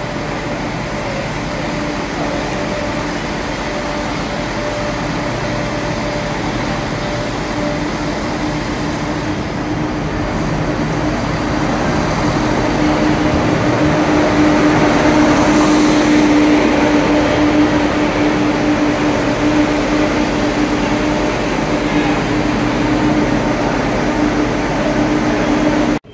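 A diesel train running, with a steady engine hum over broad rumble. It grows gradually louder until about halfway through, then holds.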